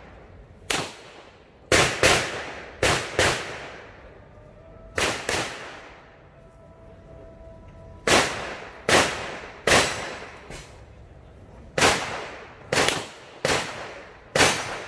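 Pistol fired repeatedly, about fourteen shots, each with a short echo: three quick pairs in the first five seconds, then after a pause of a few seconds a string of single shots a little under a second apart.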